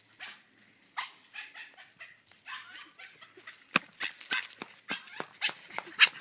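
Dogs barking in many short, quick barks during a play chase, with one sharp click a little under four seconds in.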